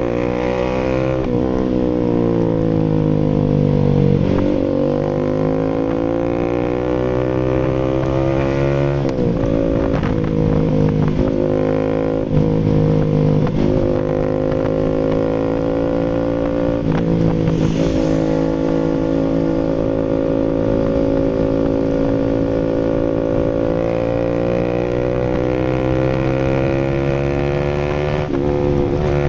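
Bajaj Rouser RS200's single-cylinder engine running through an SC Project full exhaust, its pitch falling and rising with the throttle, with several short blips in the middle and a brief sharp burst about two-thirds of the way through, then held at steady revs.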